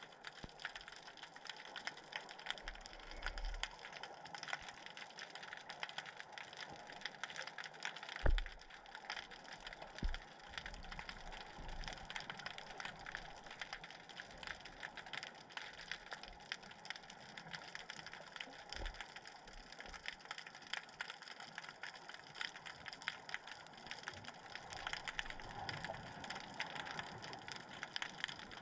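Underwater ambience picked up by a submerged camera: a steady, dense crackle of tiny clicks, with a dull low thump about eight seconds in and another about two seconds later.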